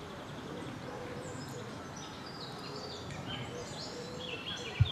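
Small birds chirping and singing in short repeated phrases over a steady background rush of outdoor noise, with a brief low thump near the end.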